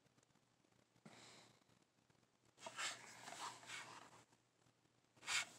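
Near silence, with a few faint, soft rustles of DVD cases and packaging being handled: about a second in, again from two and a half to four seconds, and once more near the end.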